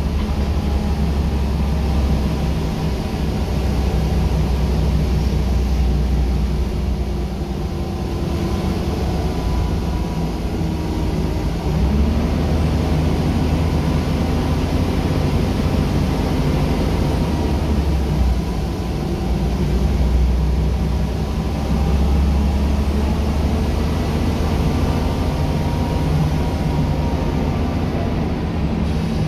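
Rear-mounted diesel engine of a Scania L94UB single-deck bus running under way, heard from inside the passenger saloon over road and body rumble. Its pitch climbs and drops back several times as the bus pulls and changes gear.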